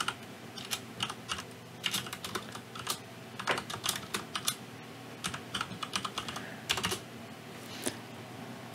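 Typing on a computer keyboard: an irregular run of keystroke clicks as a short name is typed.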